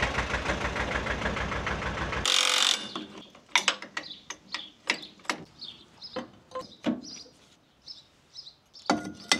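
Tractor engine running with an even, rhythmic beat, switched off about two seconds in, followed by a brief hiss. Then a series of sharp clicks and knocks, with birds chirping faintly.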